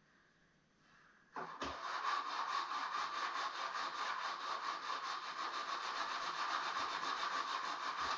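Small electric power sander switched on about a second and a half in, running steadily on the old wood with a fast, even pulsing, then cut off.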